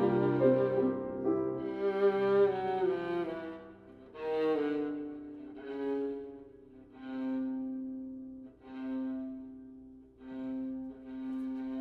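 Viola and piano playing classical chamber music: a full passage of sustained bowed notes over the piano, then, about four seconds in, a row of separate long held notes, each swelling and fading away with short gaps between.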